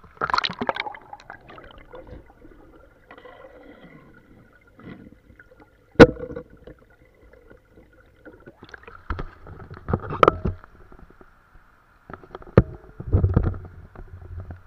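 Splashing and gurgling of shallow river water, heard partly from below the surface, with a few sharp knocks, the loudest about six seconds in.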